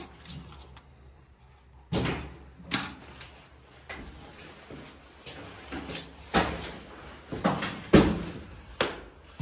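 About half a dozen sharp knocks and bumps of a door and flat wooden panels being pushed and handled. The loudest comes about eight seconds in.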